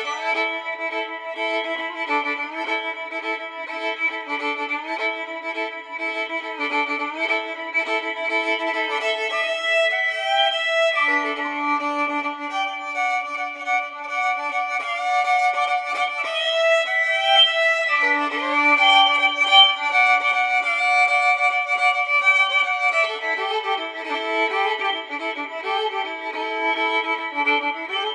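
Violin music: slow bowed notes held for a second or more, often several at once. The lower notes drop out for several seconds midway.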